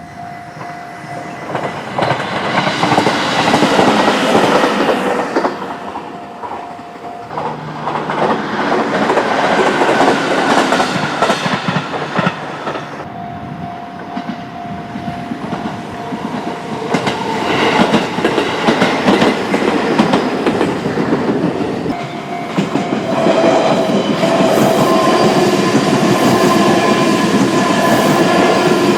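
A train running past close by, its wheels clacking over the rail joints. The sound swells and fades several times and stays loudest over the last few seconds.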